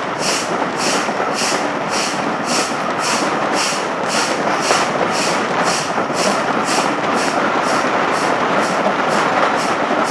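Steam locomotive working hard at the head of the train, its exhaust beats coming evenly at about three chuffs a second, over the steady noise of the train running along the track.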